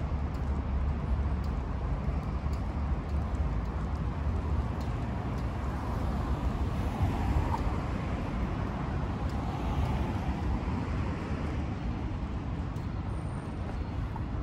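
City street traffic noise from cars on the road alongside: a steady hum with a deep rumble, swelling as a vehicle passes about halfway through.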